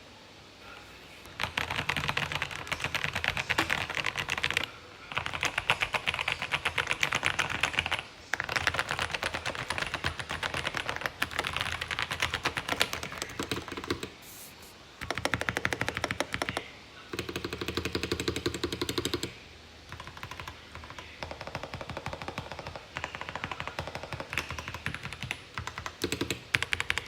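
Fast typing on a Rama Works M65-B mechanical keyboard fitted with Boba U4T tactile switches and GMK keycaps. The case is dampened inside with a tape mod and PE foam. Keystrokes come in quick runs of a few seconds with short pauses between them, and grow lighter and sparser in the last few seconds.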